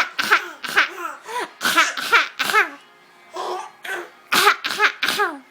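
A young child's fake cough: a run of short, voiced coughing sounds, each dropping in pitch. It comes in two bouts, about nine quick ones, then a pause of about a second and a half, then four more near the end.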